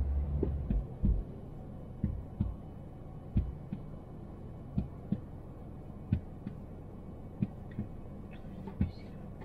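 Car driving on a motorway: a steady low road rumble with short, dull thumps at irregular intervals, about one or two a second.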